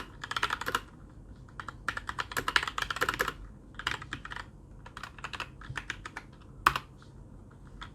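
Typing on a Keychron K2 mechanical keyboard with brown switches: quick runs of key clicks, then slower scattered keystrokes, with one louder key strike near the end.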